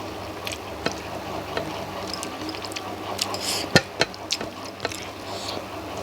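Close eating sounds: chewing, with scattered small wet clicks and smacks, a sharper click a little under four seconds in. A steady low hum runs underneath.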